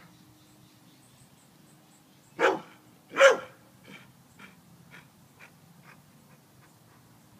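Dog barking: two loud barks about two and a half seconds in, then a string of softer short barks, about two a second, fading away. The dog is hunting for a rat.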